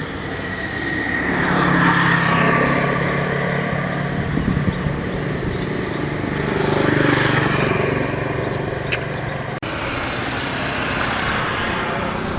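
Road vehicles passing by, the engine noise swelling twice with a falling pitch as each goes past.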